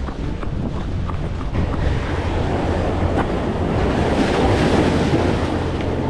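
Waves breaking and washing against the granite boulders of a jetty, with wind buffeting the microphone. The surf swells loudest about four to five seconds in.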